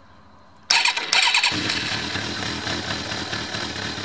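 Motorcycle's electric starter cranking the engine for under a second, starting about a second in, and the engine catching and settling into a steady idle.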